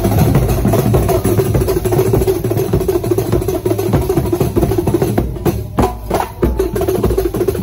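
A Banyuwangi Kuntulan procession ensemble playing a dense, steady drumming rhythm. Hand-held frame drums (rebana) are beaten together with a large barrel drum struck with a stick beater.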